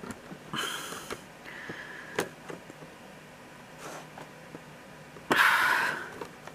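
Light clicks and taps of airsoft gearbox parts being handled as the spring and internals are fitted into the shell, with two short, noisy breaths near the microphone, the louder one about five seconds in.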